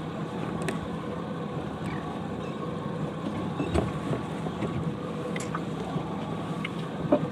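Patrol boat's engine running steadily, with a few light knocks.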